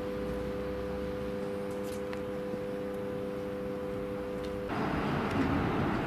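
Construction-site ambience: a steady machine hum with a few faint clicks. Near the end it cuts abruptly to a louder, rougher rumble.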